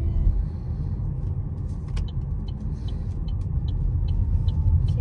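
Steady tyre and road rumble inside an electric car's cabin, driving at about 40 km/h with no engine note. From about two seconds in, a light, even ticking comes two to three times a second.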